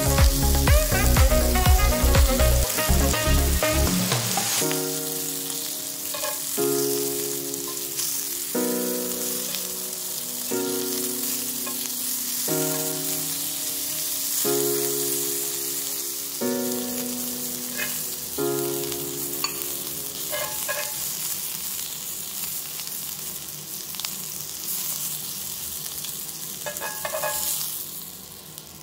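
Broccolini sizzling in oil in a hot cast iron pan as it is turned with tongs. Background music plays over it: a beat for the first few seconds, then held chords changing about once a second that stop about two-thirds of the way through, leaving the sizzle alone.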